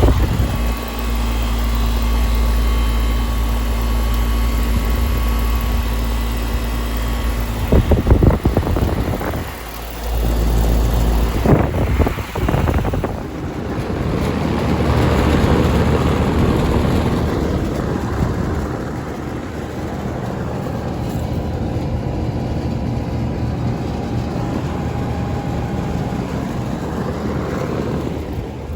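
Outdoor condensing units running: a 2000 Carrier 38YCC heat pump's compressor and condenser fan humming steadily, with gusts of wind on the microphone, then about halfway through a 1996 Rheem Classic air conditioner running, its fan giving a steady whooshing hum.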